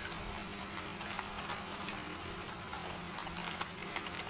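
Faint crunching of snacks being chewed and plastic snack bags crinkling, as scattered small crackles over a low steady hum.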